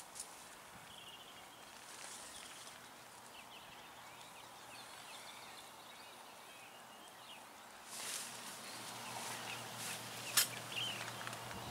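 Faint outdoor ambience with small birds chirping now and then. About two-thirds of the way in, a louder rustling starts, and a single sharp click comes near the end.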